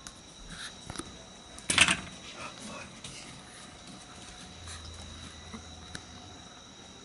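Steady high chirring of night insects, with a short loud rush of noise about two seconds in and a few small clicks.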